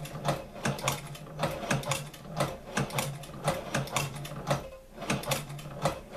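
Hand-crank Chinese shoe-patcher leather sewing machine stitching a hem through layers of cotton, its needle bar and mechanism clicking in a steady rhythm of about three strokes a second as the wheel is turned by hand.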